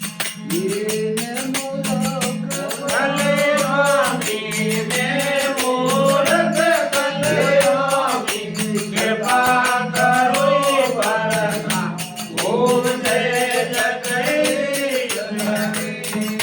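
A male voice sings a devotional aarti melody over a steady instrumental drone and a fast, even jingling percussion beat. The voice drops out about a second before the end, leaving the drone and percussion playing on.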